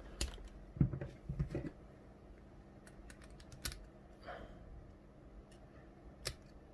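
Scattered small clicks and light knocks of metal tools and parts against a euro lock cylinder, with a quick cluster about a second in and single clicks later, as the cylinder's circlip is worked at.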